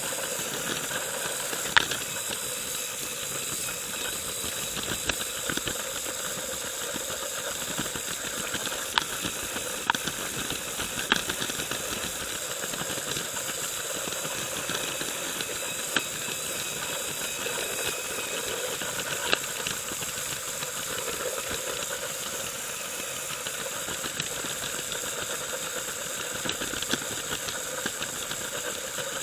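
Lego train's electric motor and wheels running along plastic track, heard from the camera riding on the train: a steady whirring hiss with a few sharp clicks scattered through it.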